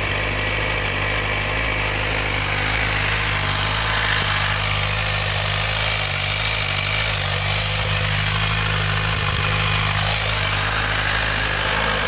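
2017 Suzuki GSX-R 1000's inline-four engine idling cold and steadily in gear with the clutch held in. In gear its loosened exhaust valve sticks open and makes a chattering racket that sounds like a transmission or valvetrain fault.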